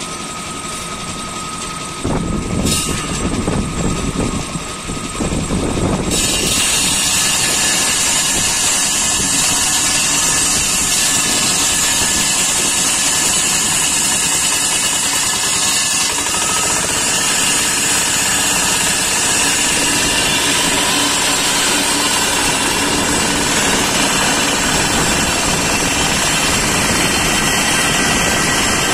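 Small engine of a wheeled concrete pipe-cutting saw running, getting louder and uneven about two seconds in. From about six seconds a loud, steady, harsh grinding sets in as the circular blade cuts into a reinforced concrete pipe.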